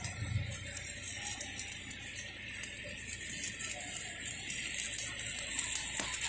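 Stick-welding (SMAW) arc crackling steadily while a hot pass is run on steel pipe, on direct current at about 125 amps.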